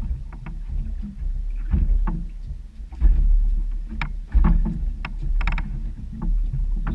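Choppy water slapping against the hull of a small open boat, in irregular low surges with a few sharp knocks.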